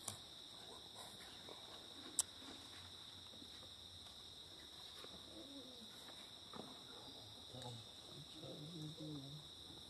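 Steady high-pitched insect chorus, with a single sharp click about two seconds in.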